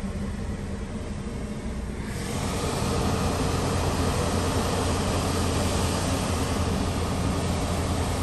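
Steady low hum of an idling car heard from inside the cabin. About two seconds in, an even hiss joins it and keeps on.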